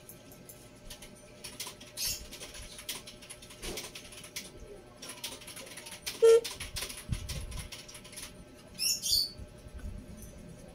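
Yoosee wireless pan-tilt CCTV camera's motors whirring in short spells as the camera head turns by itself after being powered up, among plastic handling clicks. A sharp knock comes about six seconds in, and a brief high chirp near the end.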